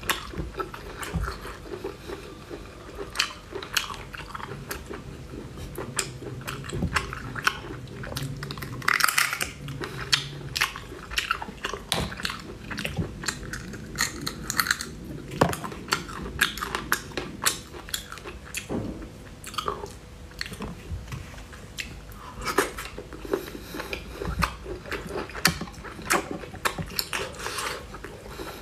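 A person chewing and biting soft snail meat, with many short mouth clicks and smacks and fingers sucked in between.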